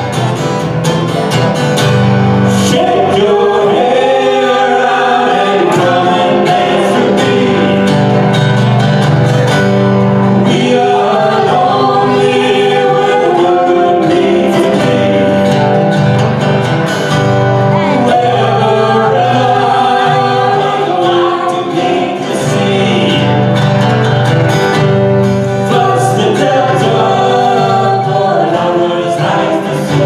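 A live band playing, with electric and acoustic guitars and a keyboard, and singing over the instruments.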